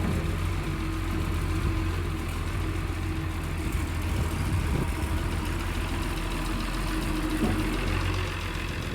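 Engine of the vehicle moving a non-running truck, running steadily with an even low hum.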